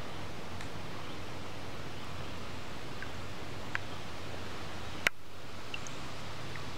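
Steady outdoor background hiss with a low hum, a few faint brief chirps, and a sharp click about five seconds in.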